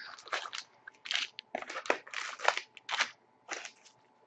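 Foil trading-card packs crinkling and scraping against a cardboard box as they are pulled out one after another, in a quick irregular string of short rustles that dies away shortly before the end.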